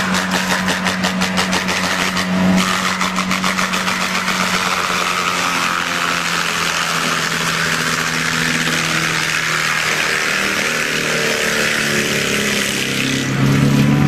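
Excavator-mounted forestry mulcher running: a steady machine drone that pulses rapidly for the first few seconds, then settles into an even hum. Near the end it grows louder as the toothed drum is lowered into saplings.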